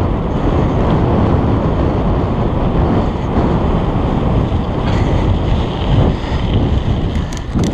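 Wind buffeting a GoPro's microphone while cycling: a steady, loud rumble, with a few light clicks near the end.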